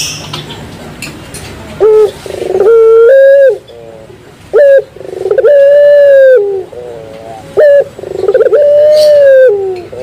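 Domestic ringneck dove (puter pelung), the 'wolf howl' voice variant, cooing loudly three times. Each call is a short sharp note followed by a long drawn-out note of about a second and a half.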